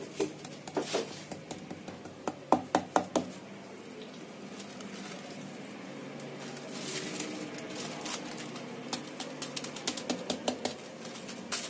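Hands patting and pressing a paper sheet down onto silver leaf on a slab of kaju katli on a wooden board. There is a quick run of light taps and paper rustles in the first few seconds and again near the end, with soft rustling between as the paper is peeled off.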